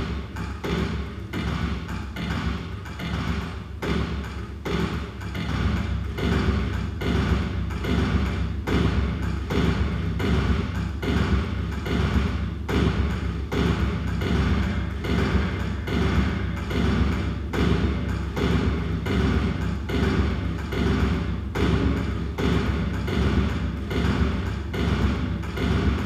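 Live electronic music built in the Kyma sound design system: a steady rhythm of short thuds and clicks over a low rumble, beats made from elevator field recordings and live input and filtered through a granulated elevator recording.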